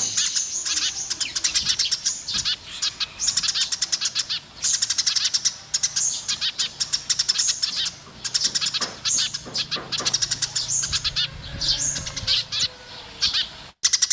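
Eurasian tree sparrows chirping at a nest: rapid runs of high, repeated chirps broken by short pauses.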